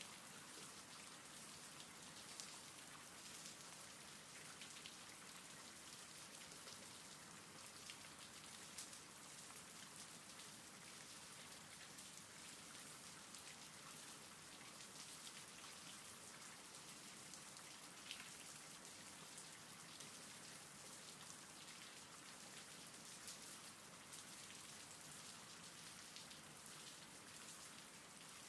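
Faint, steady rain, with scattered raindrop ticks.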